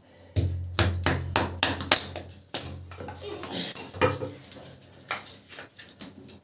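A quick run of sharp clicks and knocks, several a second, thinning out after about four seconds, with a low hum beneath part of it.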